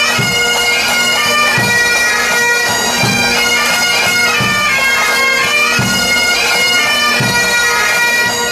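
Pipe band playing: Highland bagpipes sounding a melody over their steady drone, with a bass drum beating about once every second and a half.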